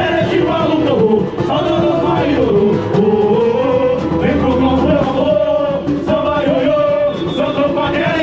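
Samba-enredo sung by a lead singer with chorus voices over samba percussion, amplified through a carnival sound truck.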